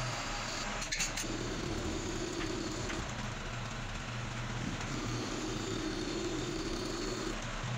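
Manual lathe running steadily while turning a stainless steel shaft to size, with a low hum that shifts in pitch every couple of seconds and a short click about a second in.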